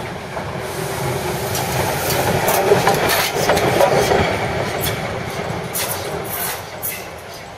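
DB class 78 steam tank locomotive 78 468 rolling slowly past close by, its wheels and running gear rumbling with scattered clicks and clanks. It grows louder as it passes about three to four seconds in, then fades as it moves away.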